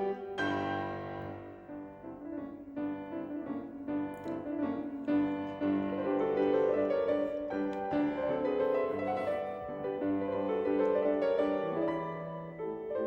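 Background piano music: a gentle, slow melody of held notes.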